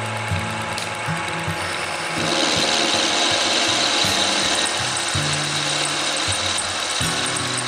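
Homemade metal lathe running and turning a steel workpiece, with a steady machine hum that shifts in pitch. About two seconds in, the sound grows louder and a high hiss joins it.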